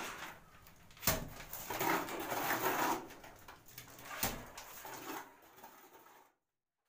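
Wet cement mortar flung by hand onto a lightweight concrete block wall for a rough-cast coat, landing as sharp slaps twice, about a second in and again past four seconds, with scraping and spattering between. The sound cuts off suddenly just after six seconds.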